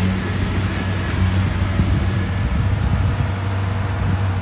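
Rice combine harvester's diesel engine running steadily, a constant low drone that holds one pitch.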